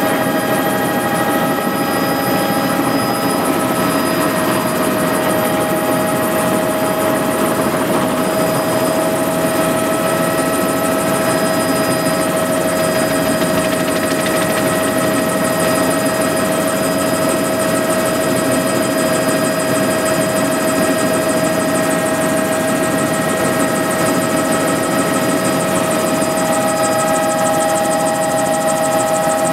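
Helicopter engine and rotors heard from inside the cabin during lift-off and low flight: a loud, constant drone with several steady whining tones over it.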